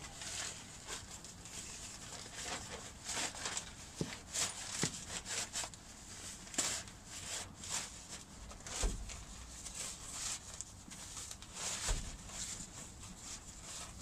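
Nylon carrying bag and chair fabric rustling and scraping as a folded reclining camping chair is pushed down into the bag, with a few dull thumps.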